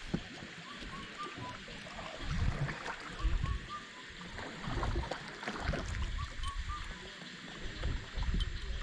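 Oars dipping and swishing through lake water as a rowboat is rowed, in irregular surges, with a group of short high squeaks recurring about every two and a half seconds.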